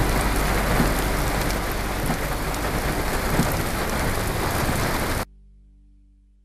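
Heavy rain falling steadily, with a low rumble underneath; it cuts off abruptly about five seconds in, leaving a faint tone that fades away.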